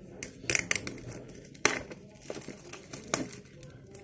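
Clear plastic shrink wrap being peeled and pulled off a cardboard phone box by hand, crinkling in short, irregular crackles.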